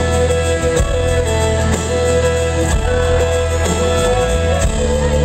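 Live country band playing the song's instrumental intro: a fiddle carries the melody in long held notes over acoustic guitars and a heavy bass.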